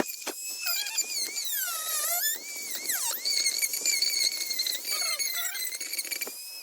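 High-speed rotary tool whining as it cuts into the plastic tire hex, its pitch sagging and recovering as it is pressed in and eased off. A sharp click comes right at the start.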